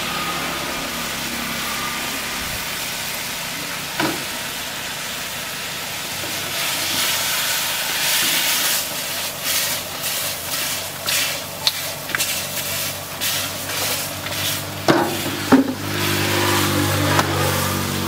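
Chicken masala sizzling in a large black iron wok, with a steel ladle scraping and knocking against the pan; the stirring gets busier from about a third of the way in. The ladle gives two sharp knocks on the pan about three-quarters of the way through.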